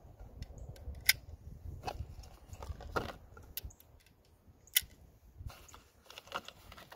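Cartridges being pressed one at a time into an MP5 magazine by hand, giving a few sharp metallic clicks at uneven intervals.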